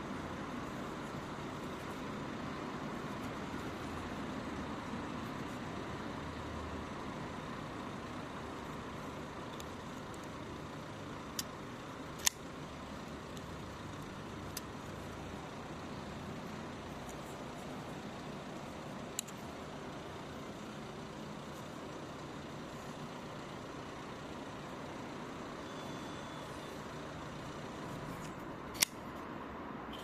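Five sharp metallic clicks from a CJRB J1932 folding knife being worked in the hand, its blade snapping open or shut and locking, scattered over a steady background hum. Two of the clicks are much louder than the rest.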